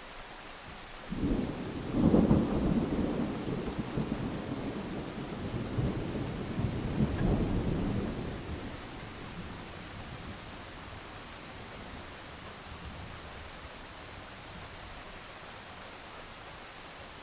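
Thunder rolling over steady rain: a loud crack-like onset about a second in, a rumble that swells again near seven seconds, then fades out, leaving the even hiss of rain.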